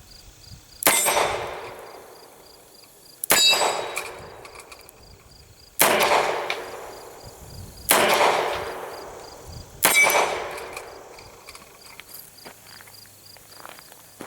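Five shots from a Rossi Model 720 five-shot .44 Special revolver, fired double action with 240-grain lead semi-wadcutter handloads, about two seconds apart. Each shot has a long fading tail.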